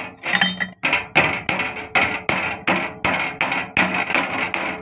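Steel hammer repeatedly striking a tractor clutch release bearing and collar on a metal seat: about a dozen sharp, ringing metal-on-metal blows, roughly three a second. The blows are working on the release bearing, which is worn out and being replaced.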